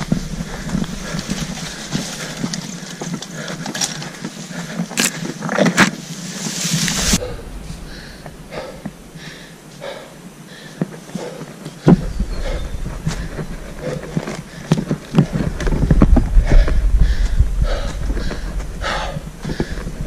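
Footsteps of a man walking through pine-forest litter of needles and twigs under the weight of a red deer hind carried on his back: a rustling, crackling tread, then a run of separate heavy steps about one a second. A low rumble builds from about twelve seconds in.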